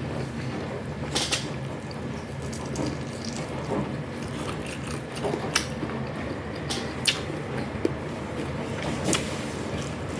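Eating at a table: scattered sharp clicks and taps, about half a dozen, over a steady low hum.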